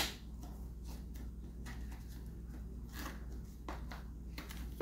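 A lid snapping onto a container with one sharp click, followed by a few faint handling clicks over a steady low hum.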